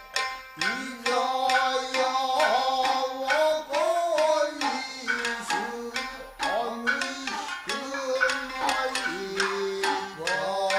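Nagauta dance accompaniment: shamisen plucking in sharp strokes, joined about half a second in by a singer holding long, wavering sung notes.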